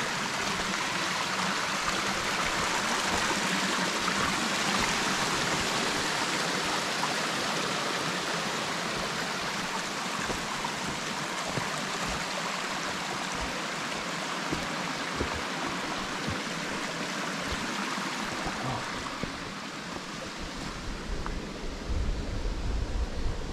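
Steady rush of a mountain stream. It eases a little near the end, where a few low bumps come in.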